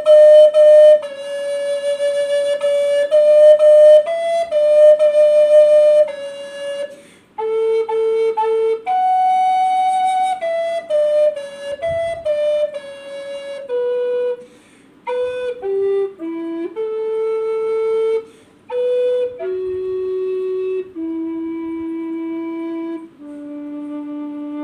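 Solo plastic recorder playing a slow melody, one note at a time, with short breaths between phrases. It ends on three long held notes stepping down in pitch.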